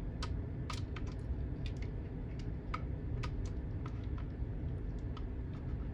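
Irregular small plastic clicks and taps, about a dozen, as a smoke alarm battery and a voltage meter's test probes are handled. Underneath is a steady low background hum.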